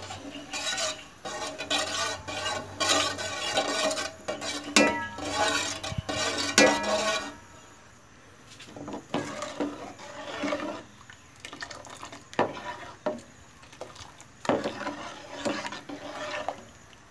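Metal ladle stirring and scraping around a metal pot of bamboo-shoot curry, with clinks and some ringing where it knocks the pot; steady for about seven seconds, a short lull, then stirring again in separate strokes. The stirring keeps the pounded soaked rice thickening the curry from sticking to the bottom.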